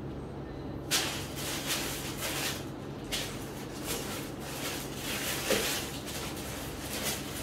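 Clear plastic packaging crinkling and rustling as it is handled, in irregular bursts of handling noise starting about a second in.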